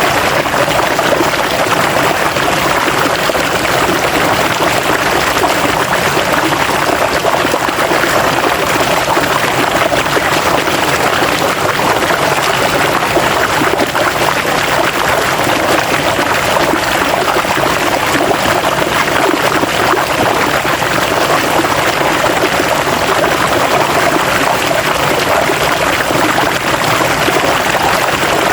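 River water flowing over rocks, a steady rushing and splashing that does not change.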